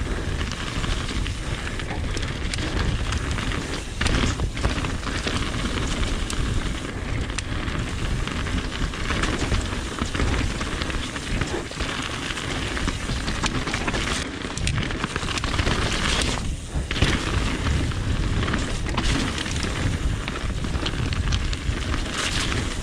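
Mountain bike descending fast over dirt and gravel singletrack: tyres rumbling and crackling over the ground, with frequent knocks and rattles from the bike and steady wind noise on the chest-mounted camera's microphone.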